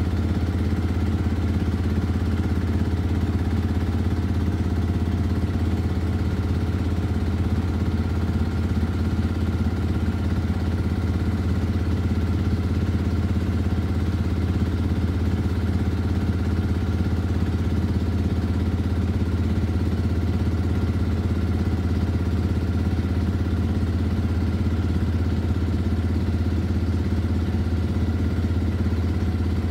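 A boat engine running steadily with a deep, even hum that holds unchanged throughout, driving the boat slowly through a thick mat of water hyacinth.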